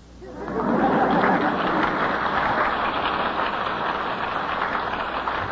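Studio audience applauding a guest's introduction, swelling up within the first second and then holding steady, heard through the narrow, dull sound of a 1939 radio broadcast recording.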